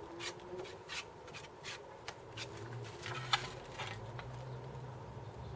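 Irregular scraping and rubbing strokes of a spreader working freshly mixed Bondo body filler on a mixing board, with one sharp click about three seconds in.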